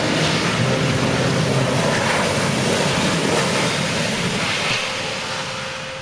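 Boeing 737 airliner's jet engines roaring through the touchdown and landing roll, with wind noise on the microphone. The roar eases off over the last couple of seconds.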